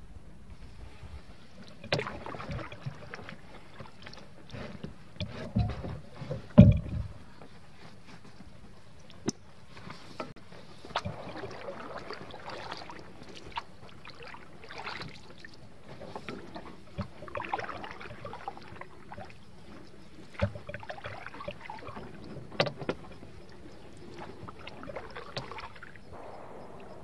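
Paddling a Wenonah canoe: paddle strokes splashing and gurgling in the water, with scattered knocks of the paddle against the hull. The loudest is a cluster of low thumps about six or seven seconds in.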